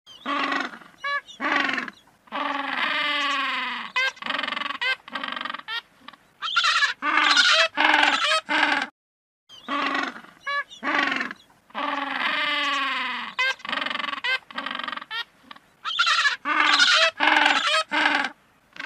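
African penguins braying: runs of short honking notes and longer drawn-out calls, repeated over and over, with a short break about halfway through.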